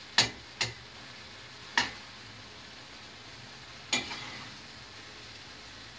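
Peppers and tomatoes frying in oil in a steel pan, a steady faint sizzle, as a utensil stirs them and clicks against the pan four times.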